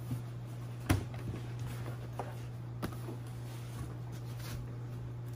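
Handling of a hardshell guitar case as its nylon cloth cover is pulled off: rustling fabric, a sharp knock about a second in and a lighter click near three seconds. A steady low hum runs underneath.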